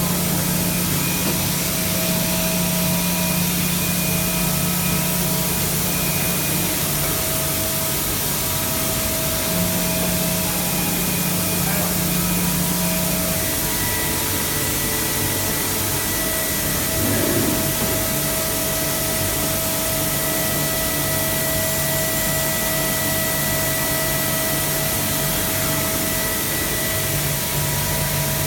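Mazak 5-axis CNC machining center running a job: a steady hiss with several steady machine tones over it, the lowest of which shifts in pitch a few times during the first half.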